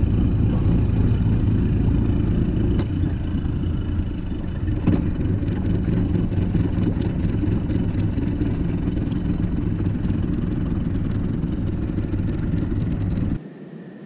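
A boat's outboard motor idling steadily: a low engine drone that cuts off suddenly near the end. From about four seconds in, a fast, high-pitched ticking of roughly four to five per second runs above it.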